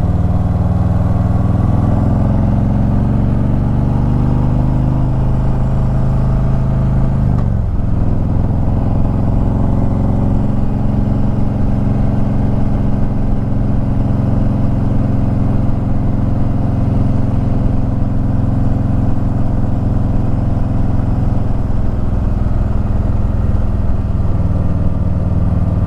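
Harley-Davidson Ultra Limited V-twin engine running under way. Its note climbs slightly, drops sharply about seven and a half seconds in, then holds steady.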